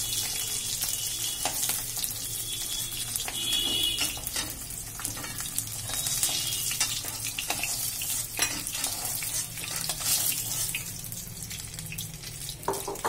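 Hot oil sizzling in a metal wok as fried boiled eggs are lifted out one at a time, with a metal spatula scraping and clicking against the pan.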